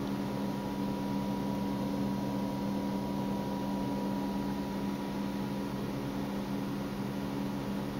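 A steady low machine hum over an even hiss, with a faint high tone that fades out about five seconds in.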